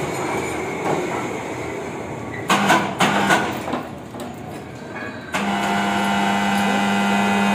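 Electric chain hoist lifting a load of steel discs on a chain sling. About two and a half seconds in, the motor jogs twice briefly among metal clanks of chain and steel; from about five seconds in, it starts and runs with a steady hum.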